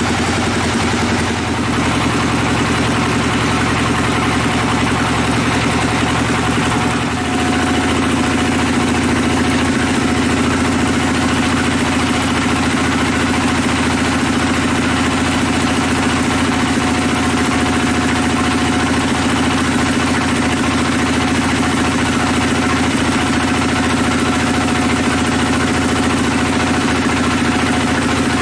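Band sawmill cutting a large mahogany log, the machine running with a loud, steady drone. About seven seconds in the sound dips briefly and its pitch shifts, then holds steady again.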